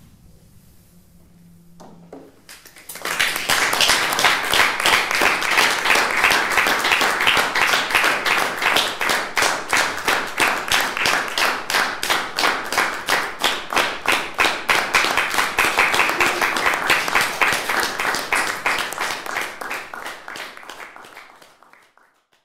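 Small audience applauding in a small room as the song ends: dense clapping breaks out about three seconds in, holds steady, then thins and fades out near the end.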